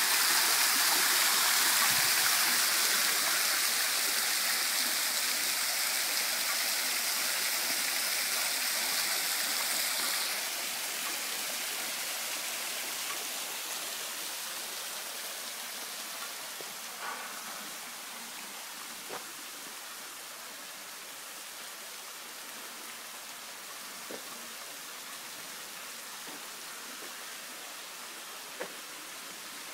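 Water falling from the rims of a mushroom-shaped fountain's discs makes a steady splashing hiss like rain. It is loudest at first and drops noticeably after about ten seconds, leaving a softer wash with a few faint ticks.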